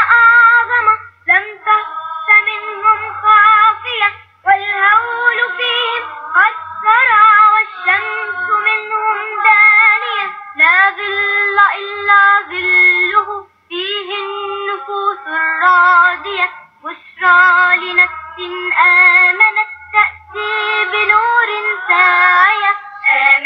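A child singing a nasheed with no instruments, in a high voice, in phrases broken by short pauses for breath.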